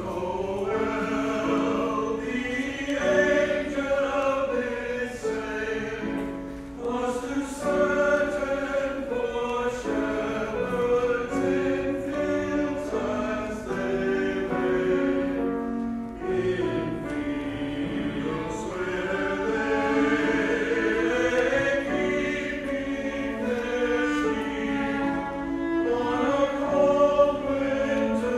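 Mixed church choir of men's and women's voices singing a Christmas cantata, with held notes that rise and fall without a break.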